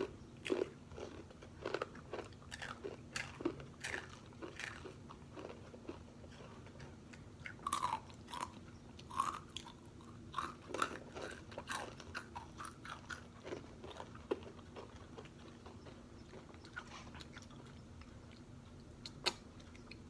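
Takis rolled tortilla chips crunched and chewed close to the microphone by two people eating, in irregular sharp crunches.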